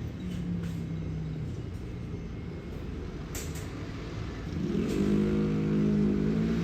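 Low hum of a Hankyu electric train's motors, rising in pitch and growing louder about four and a half seconds in as the train accelerates.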